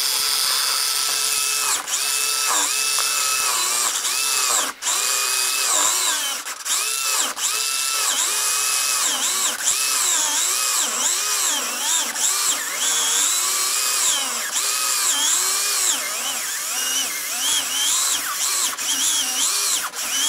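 Scalextric slot car's small electric motor whining as its rear wheels spin against sandpaper, the pitch dipping and rising over and over as the tyres are lowered onto the paper and moved side to side, over a steady high hiss of rubber grinding on the abrasive. The tyres are being sanded flat to remove factory lathe ridges. The motor briefly cuts out twice in the first five seconds.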